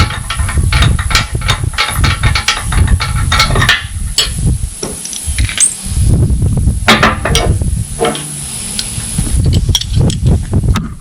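Hobart 140 MIG welder arc crackling while running beads, in runs of a few seconds broken by short pauses, over a steady low rumble.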